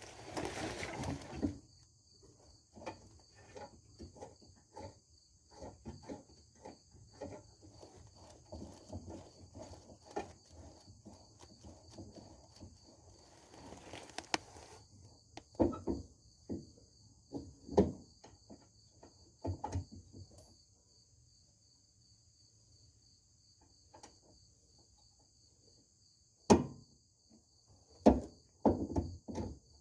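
Hand tools working on a car's rear suspension: irregular clicks of a wrench or ratchet and metal clinks and knocks, with a few louder knocks in the second half, as the panhard bar is bolted in. Crickets chirp steadily in the background.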